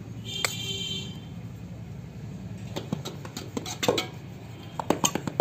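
Metal spoon stirring spice powder in a large aluminium basin. A single metallic clink rings briefly about half a second in, and from about three seconds on come quick, irregular scrapes and knocks of metal against the basin.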